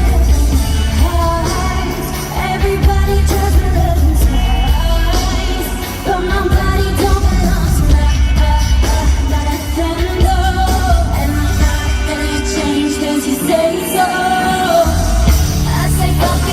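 Pop song with singing over a heavy bass beat; the bass drops out for about a second and a half near the end, then comes back in.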